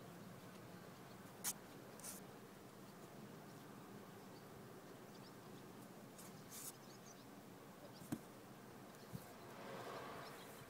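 Near silence under a faint steady hum, with a few soft clicks and a rustle: kittens scuffling and pawing on cloth in a cardboard box.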